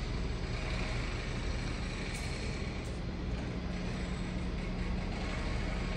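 Steady low rumble and hum with a faint even hiss from a train standing at the platform, with no break or change.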